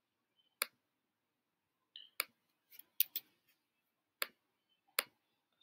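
Mouse clicks: about seven short, sharp clicks at uneven intervals, two of them close together about three seconds in, with near silence between.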